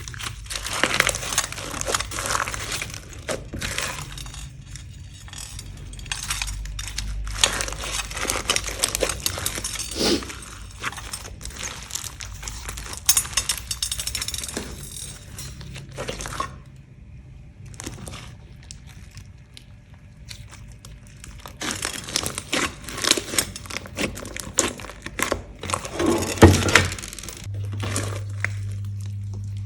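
Glossy slime being kneaded and mixed by hand: irregular wet crackling and popping clicks in bursts, with quieter pauses between handfuls.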